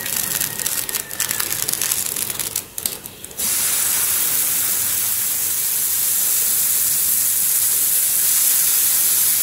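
Hot oil crackling in a greased frying pan. About three and a half seconds in, it turns suddenly into a steady sizzle as wet wheat-and-banana dough lands on the hot pan and starts to fry.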